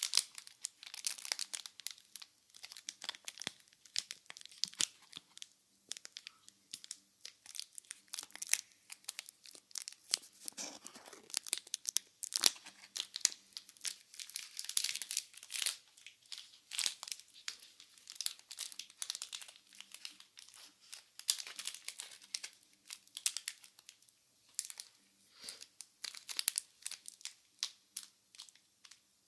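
Crinkling and crackling handled right at binaural microphones: an irregular, dense run of small sharp crackles, mostly high-pitched, with a few louder pops.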